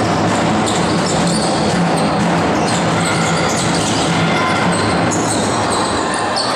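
Live sound of a basketball game in a large gym: a basketball bouncing on the hardwood and short sharp footfalls and shoe noises over a steady background din of the hall.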